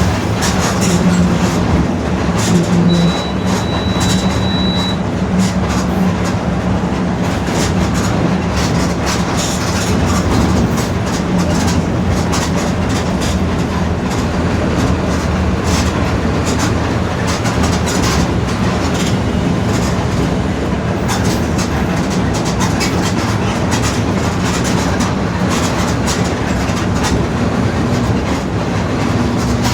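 Inside a Mercedes-Benz OF-1721 BlueTec 5 city bus under way: a steady low drone from the diesel engine and drivetrain, with the rear differential growling, over constant rattling from the bodywork. A brief high beep sounds about three seconds in.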